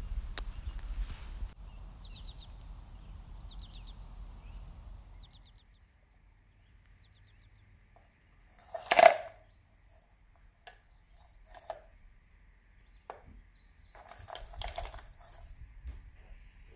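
Lotus Biscoff cookies poured from a metal scoop into a plastic food-processor bowl: one short, loud clatter about nine seconds in. Lighter clicks and a brief rattle follow as the cookies settle and are shifted.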